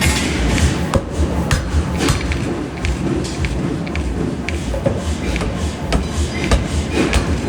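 Forging-shop hammer strikes and metal clanks at irregular intervals, several a second at times, over a steady low rumble.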